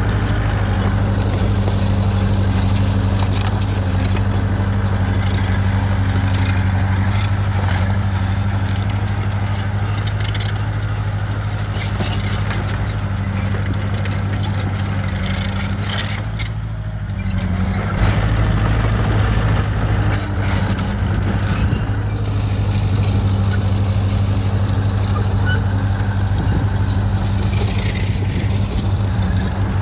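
Heavy diesel construction machine engine running steadily, with metallic clanking and rattling over it. The engine drops briefly about halfway through, then comes back louder.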